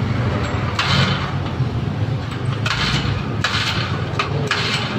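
Small four-stroke engine of a brand-new backpack power sprayer running at a steady idle, with several short hissing bursts over it.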